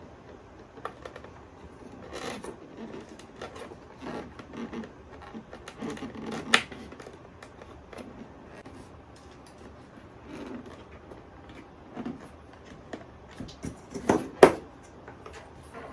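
Paper and double-sided adhesive tape being handled, rustling, rubbing and scraping as a hinge is pressed onto a paper door. Scattered sharp clicks and taps, the loudest about six and a half and fourteen and a half seconds in.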